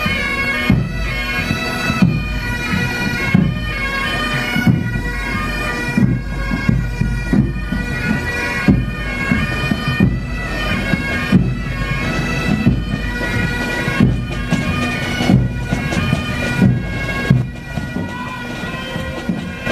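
A pipe band playing: bagpipes sound a tune over their steady drone, while a bass drum and snare drum keep a regular marching beat.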